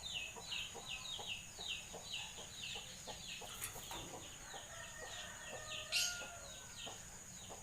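Birds chirping: a quick, regular run of short, high chirps, about four a second, over a steady high whine, with one sharp rising whistle about six seconds in.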